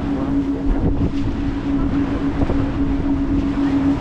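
Passenger ferry's engine drone, a steady low hum, with wind buffeting the microphone and water noise.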